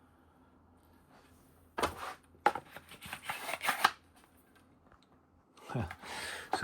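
Clicks and rattles of a wooden watchmaker's parts box being handled, a quick cluster lasting about two seconds that starts about two seconds in.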